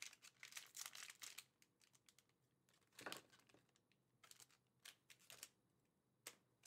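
Faint crinkling and light clicking of sealed foil trading-card packs being handled and dealt out, in short scattered bursts.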